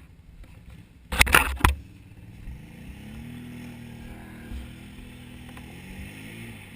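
Small off-road vehicle engine running at low revs, its note rising slightly and then holding steady. A couple of short, loud bursts of noise come about a second in.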